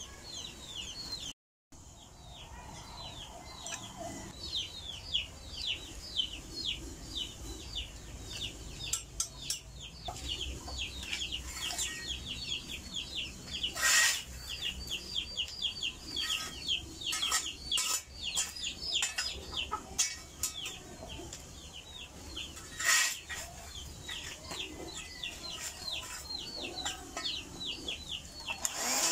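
Chickens peeping: a steady run of short, high, falling chirps, several a second, with two sharp knocks, about fourteen and twenty-three seconds in.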